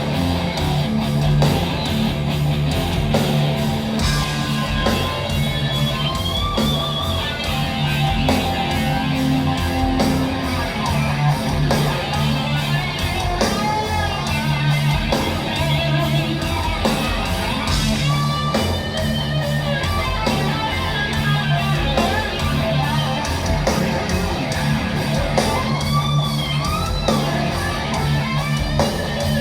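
Heavy metal band playing live: distorted electric guitars over bass and drums, with a lead line of bending high notes.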